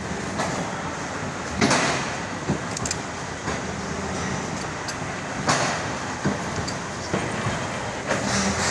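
Clamshell platen die-cutting press running, with a loud clack about every four seconds as the platen closes to cut a carton sheet, over a steady machine hum and smaller knocks.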